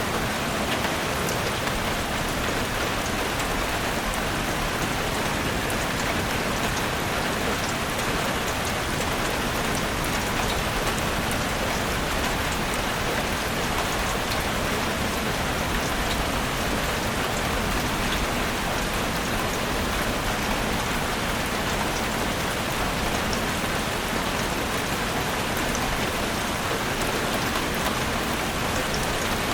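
Steady rain falling on a forest, an even hiss with scattered faint drop ticks.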